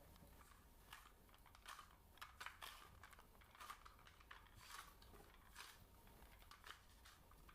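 Faint, irregular scratching and clicking from ASMR ear-cleaning (采耳) sounds worked close against the microphone, a few soft clicks a second with no steady rhythm.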